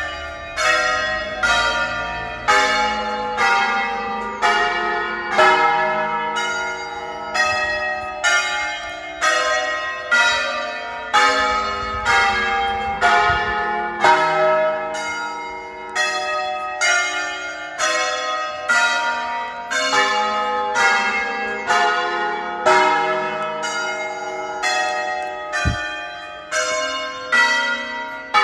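Church bells of a thirteen-bell ring in E-flat, the nine largest rung by a team of ringers in the Veronese manner, striking one after another at a steady pace of about one and a half strokes a second, each bell ringing on under the next. A brief low thud is heard near the end.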